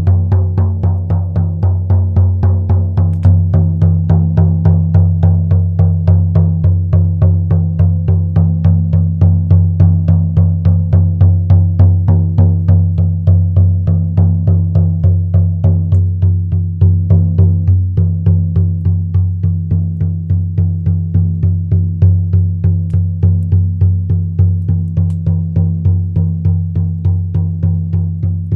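Shaman frame drum struck in a steady, even beat. Each stroke is a deep boom that rings on into the next.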